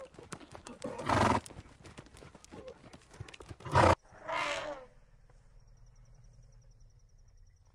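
Horses: quick hoof clicks with two short, loud noisy blasts, about a second in and just before four seconds. Then a brief call that falls in pitch, followed by a faint low hum.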